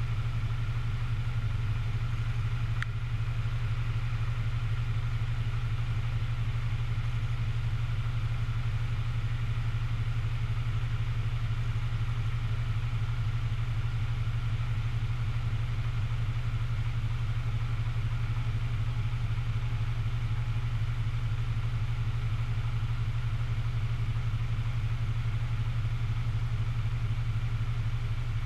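Diesel engine idling steadily, a low even hum that does not change.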